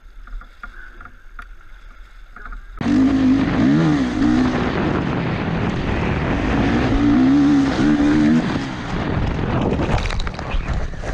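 Dirt bike engine revving hard at speed, its pitch rising and falling with the throttle. About ten seconds in it turns into a crash: the bike going down in a rough clatter of knocks and scraping. For the first few seconds there is only faint water and background noise.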